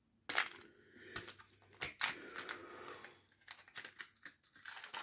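Clear plastic packaging bag crinkling and rustling as it is handled, with irregular sharp clicks and crackles.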